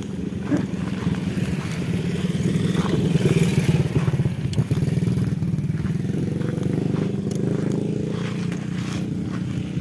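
Motorcycle engine running steadily while being ridden, loudest about three to four seconds in.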